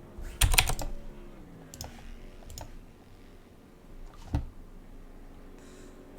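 Computer keyboard clicks: a quick run of keystrokes about half a second in, then a few scattered single clicks.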